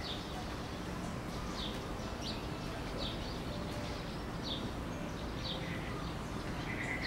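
A bird giving short, falling chirps about once a second, over a steady low background rumble.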